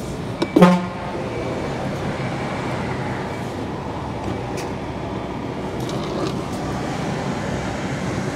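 Semi-truck's diesel engine running steadily as the rig pulls slowly away from a fuel pump, heard through a camera mounted outside the cab. A short, loud pitched sound comes about half a second in.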